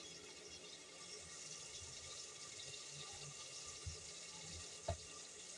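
Faint steady hiss and soft bubbling of thickened dal simmering in a metal pan on the stove, with a single light tap about five seconds in.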